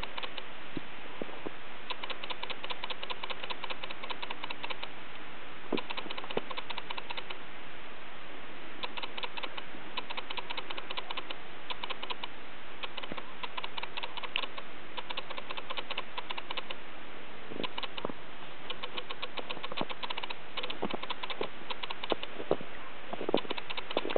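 Footsteps crunching in fresh snow, a run of crackly crunches with short pauses between groups of steps, over a steady hiss.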